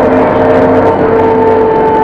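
City bus under way: engine and drivetrain whine with several steady tones that shift slowly in pitch, over road rumble.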